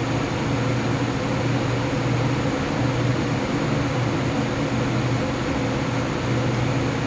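XPG Vento (Nidec Gentle Typhoon) 120 mm case fans in a Lian Li O11D Mini PC case running under full CPU load: a steady rush of air with a low humming tone underneath. The owner traces this howling to the fan blades forcing air through the slits in the case's top panel.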